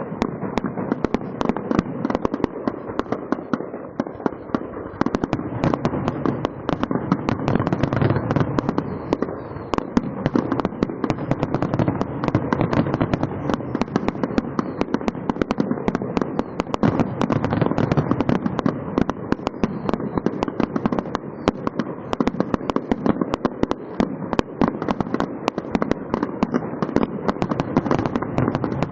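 Fireworks going off in a dense, unbroken barrage of rapid pops and crackles.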